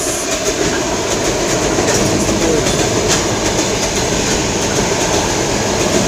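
Electric multiple-unit commuter train passing close by: a loud, steady rumble of wheels on rails, with sharp clicks as the wheels cross rail joints.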